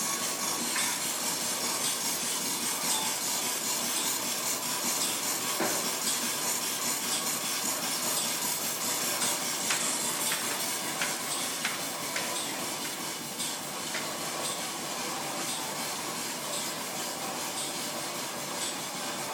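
Steam-powered line-shaft machine shop running: a small steam engine driving overhead line shafts and flat belts that turn lathes and a drill press. A steady mechanical whir and hiss with faint, irregular ticks.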